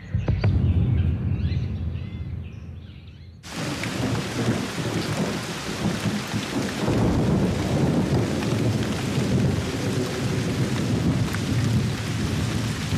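Thunderstorm: a low rumble of thunder for the first few seconds, then about three and a half seconds in heavy rain comes in abruptly as a steady, dense downpour.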